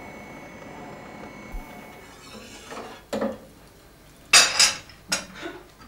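Porcelain coffee cups and saucers clinking on a tray as they are handled: a few separate clinks, with the loudest clatter about four and a half seconds in.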